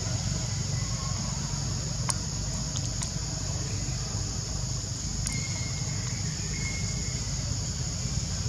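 Steady outdoor ambience: an even, high insect drone over a low rumble, with a couple of sharp clicks about two and three seconds in.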